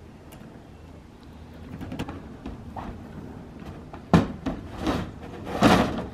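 Plastic roof cargo box being unlatched and its lid opened: light clicks, a sharp clack about four seconds in, a few more knocks, then a longer, louder noise near the end as the lid comes up.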